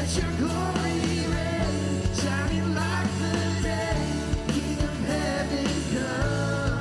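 Live worship band playing a Christmas song, with sustained bass, steady drum hits and sung melody lines.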